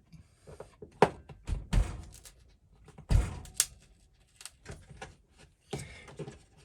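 Knocks and thuds of a stuck kitchen mixer tap being worked loose from the sink, a string of separate sharp hits with the loudest about a second in and about three seconds in. The tap is held fast, as if glued down.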